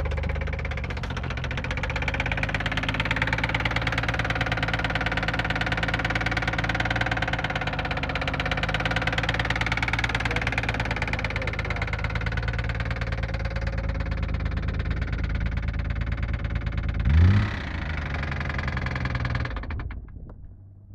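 Nissan RB26 twin-turbo straight-six idling with a steady, rapid knock from inside the engine. It gives one brief rev about 17 seconds in, then is shut off near the end.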